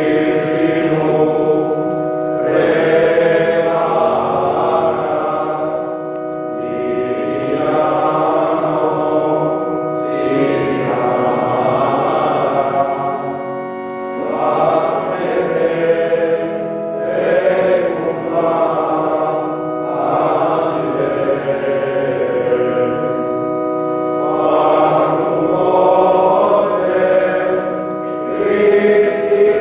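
A choir of confraternity singers chanting a devotional hymn in a church, in sung phrases of a few seconds each with short breaks between them.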